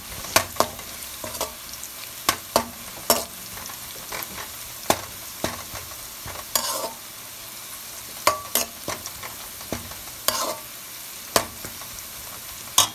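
Sliced onions sizzling in hot oil, being fried towards golden brown, while a slotted spatula stirs them and knocks and scrapes against the metal pan every second or so.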